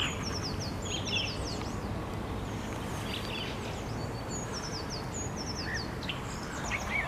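Small songbirds calling: short high whistles that slide downward, in quick runs of several at a time, with scattered chirps, over a steady low background rumble.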